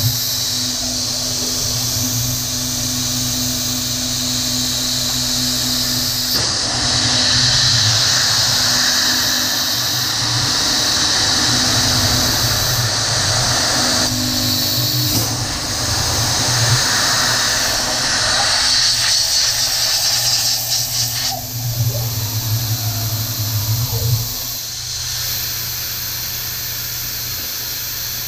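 PM30-MV milling machine cutting aluminium with an endmill: a steady spindle-motor hum under a constant hiss from the coolant nozzle. The cutting noise swells and eases several times as the cut bites, and drops away about three-quarters through.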